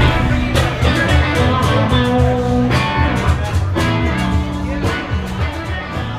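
Guitar-led background music with a steady beat, fading out over the last few seconds.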